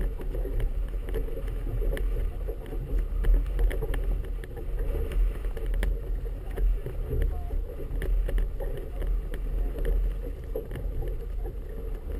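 Wind buffeting a GoPro in its housing, with small choppy waves lapping and slapping against a small boat's hull, giving a steady low rumble and scattered sharp clicks.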